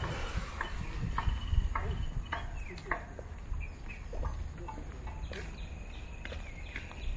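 Dusk outdoor ambience of calling wildlife: a steady high-pitched insect buzz with a string of short chirping calls about every half second, over a constant low rumble.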